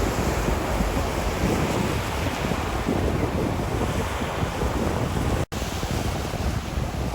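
Sea waves washing onto a shore with wind buffeting the microphone: a steady, dense rush with a heavy low rumble. The sound cuts out for an instant about five and a half seconds in.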